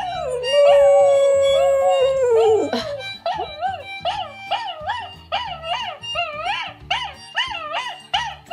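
Dog howling: one long held howl that drops away about two and a half seconds in, then a run of short rising-and-falling yelping calls, about two a second, over background music.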